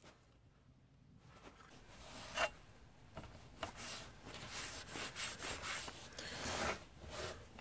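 Rubbing and scraping strokes on a steel machete blade, as a hand scrubs over its surface. The strokes are irregular and start about two seconds in, with one sharper scrape.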